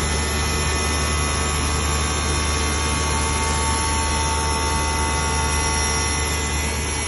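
CMS CNC glass work centre running, its spindle working glass under a spray of water coolant: a steady whirring hiss with several steady whining tones over a low hum.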